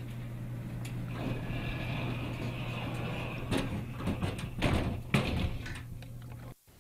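Elevator door sliding, with a few knocks and rustling over a steady low hum.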